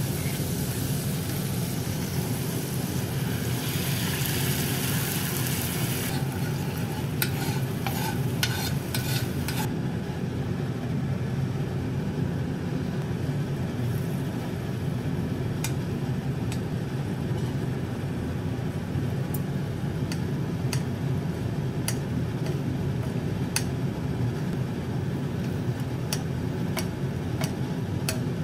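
Peppercorn cream sauce sizzling and bubbling in a carbon-steel pan while it is stirred with a spatula and spoon, with a steady low hum beneath. The hiss of the sizzle is strongest for the first six seconds or so, then gives way to scattered light clicks of the utensils against the pan.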